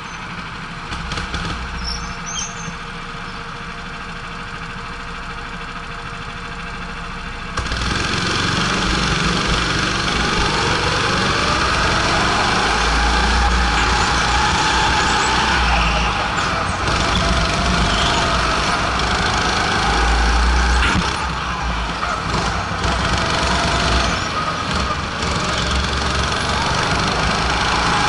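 Go-kart engines running, heard from on board the kart. The sound is quieter at first, then jumps louder about seven and a half seconds in, and the engine note rises and falls through the corners.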